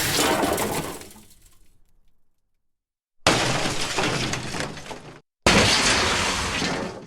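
Crash sound effects of glass breaking and shattering. One crash dies away over about two seconds. After a silent gap, two more crashes start suddenly, each cut off after about two seconds.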